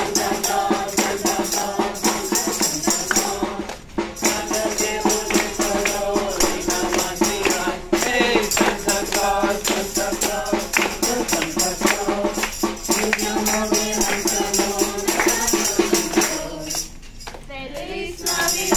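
A group of voices singing a Christmas carol together to a steady clapped beat with percussion. The music dips briefly about four seconds in and again near the end.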